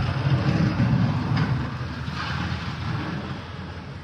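Low vehicle engine rumble with road noise, louder at first and fading away over the last couple of seconds.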